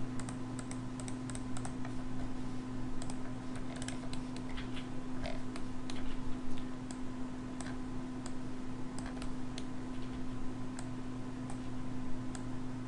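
Irregular light clicks of a computer mouse and keyboard being worked, over a steady low electrical hum.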